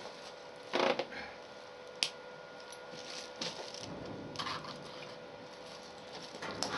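Handling noises at a workbench just after welding: a short clatter about a second in, a sharp click near two seconds, then a few light knocks and scrapes, over a faint steady hum.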